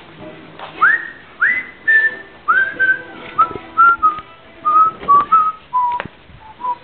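A person whistling a slow tune of short notes that step gradually down in pitch, each note sliding up into place, with a few light knocks in between.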